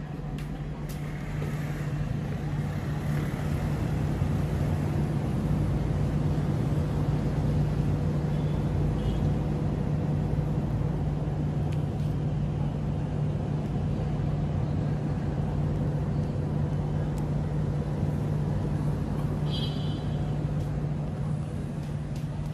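A motor vehicle's engine running steadily: a constant low drone over road rumble, a little louder after the first second or two.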